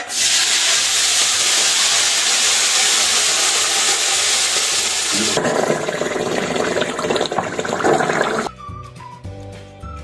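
Hot oil with fried garlic (a tarka) poured into a pot of cooked sarson ka saag, sizzling loudly as a bright, even hiss. About five seconds in, as it is stirred in with a ladle, the hiss turns to a lower, crackling sizzle, which stops abruptly about three seconds later.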